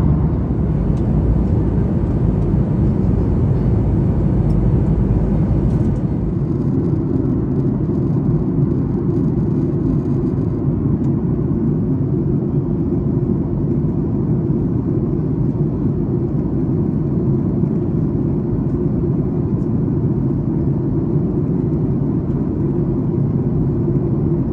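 Steady cabin noise of a Boeing 737-800 in flight, heard from a window seat by the wing: a deep, even rumble of the engines and air rushing past the fuselage. The faint upper hiss drops a little about six seconds in and again about ten seconds in.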